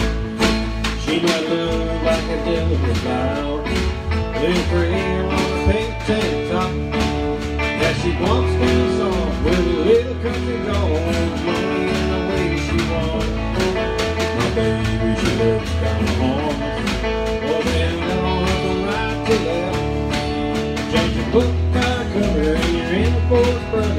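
A small country band playing: electric guitar, electric bass, keyboard and a snare drum keeping a steady beat.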